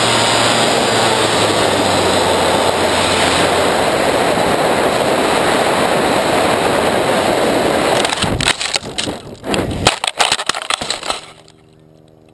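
Onboard sound of a Bixler 3 electric RC plane in flight: a steady rush of motor, propeller and wind. About eight seconds in, a rapid string of cracking, snapping impacts follows as the plane hits a branch and crashes. It then drops to a faint steady hum.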